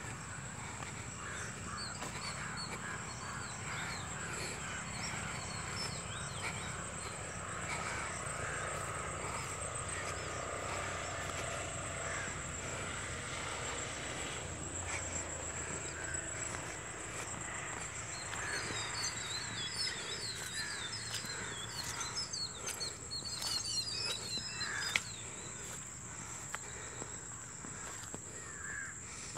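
Outdoor rural ambience: a steady high-pitched insect trill with birds chirping over it. The chirping is busiest for several seconds past the middle.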